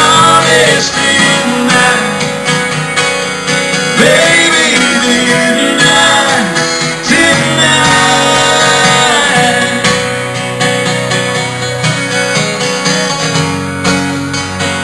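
Live acoustic country music: several acoustic guitars strummed and picked, with a voice singing over them in places.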